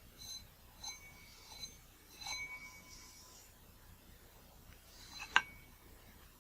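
Microfiber cloth rubbing on a glass lens element as it turns on a rotary table, giving short ringing squeaks about every two-thirds of a second. A single sharp click comes a little past five seconds in.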